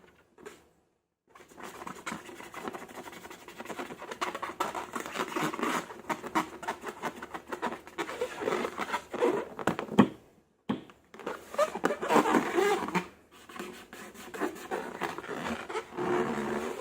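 Slime being worked by hand, a dense sticky crackling and scratching with occasional short squeaks. There is a sharp snap about ten seconds in.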